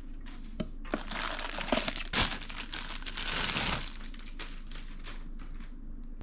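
A plastic bag crinkling and rustling as a spinning reel is pulled out of it, with a few sharp clicks among the rustle. The rustling stops about four seconds in, leaving a few light clicks.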